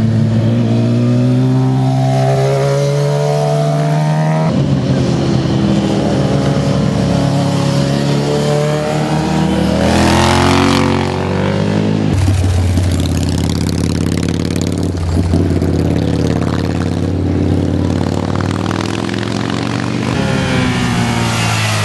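Sport motorcycle engines revving up and down through the gears as bikes ride one after another through a bend, with a sharp rise and fall in pitch about halfway through as one passes close. The sound cuts abruptly twice between passes.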